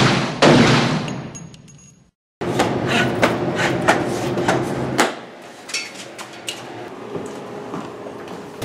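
A loud bang about half a second in that dies away, then after a brief dead silence a run of sharp knocks and thuds over a steady rumble, turning to fainter clicks after about five seconds.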